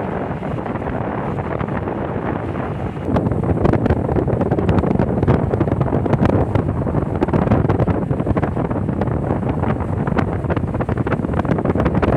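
Wind buffeting the microphone aboard a boat on the water, over a steady rumble of boat and water noise; the buffeting grows louder about three seconds in.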